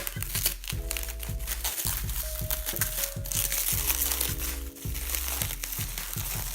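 Plastic packaging crinkling and crackling as parts are pulled out of their wrapping, over background music with a steady beat.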